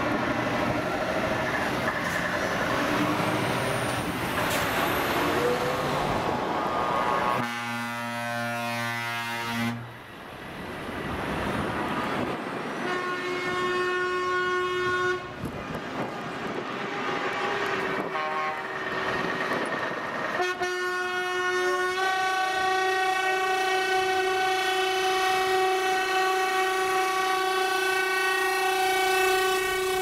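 Heavy trucks driving slowly past with their diesel engines running, sounding air horns: a deep horn blast of about two seconds some seven seconds in, shorter blasts later, and a long steady horn blast held over the last third.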